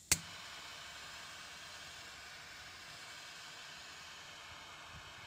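Triple-jet butane torch lighter igniting with one sharp click just after the start, then the steady hiss of its jet flames burning.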